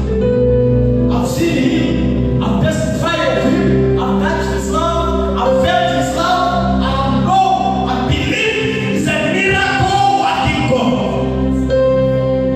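Gospel worship music: voices singing over held instrumental accompaniment.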